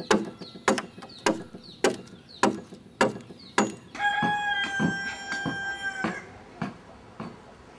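A hand tool chopping into the wood of a dugout canoe hull, hollowing it out, in steady blows a little under two a second. About four seconds in, a rooster crows in one long held call lasting about two seconds, while the chopping carries on more softly.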